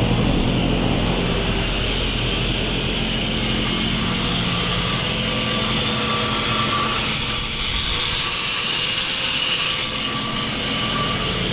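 MIG welding on the broken trencher boom: a steady sizzling crackle from the arc that runs without a break, with a steady low engine hum underneath.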